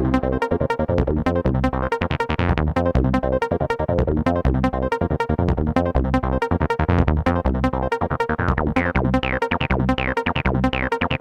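Electronic dance music with a fast, steady beat and synthesizer tones.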